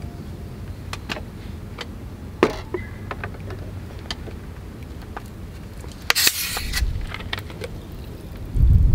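Light clicks and knocks of a glass whisky bottle and an ice-filled glass being handled, with the bottle set down on a wooden table, the loudest knock about two and a half seconds in. A short hiss about six seconds in, and a low rumble near the end.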